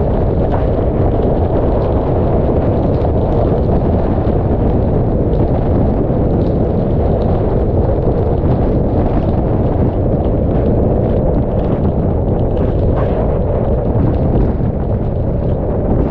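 Hurricane-force wind from the remnant eyewall blasting over a car-roof-mounted GoPro MAX, a loud, steady, low rumbling buffet on the microphones, with many small ticks of rain striking the camera.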